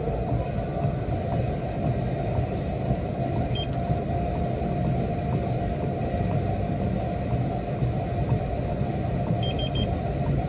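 Steady low rumble, with a faint high beep about three and a half seconds in and three quick faint beeps near the end.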